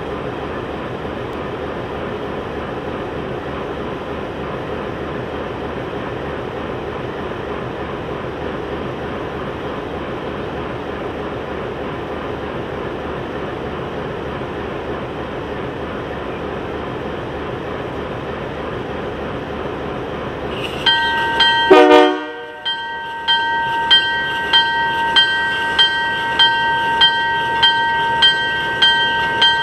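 Alco C-424 diesel locomotive's V16 engine running steadily at idle. About two-thirds of the way in there is a brief loud blast, and then the locomotive bell rings steadily, about one and a half to two strokes a second, as the train gets ready to depart.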